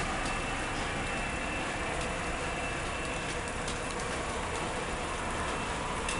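A steady, unexplained roar like a jet turbine, very strong wind or a highway, with a thin high squeal running through it. A few faint ticks of rain drops are heard in it.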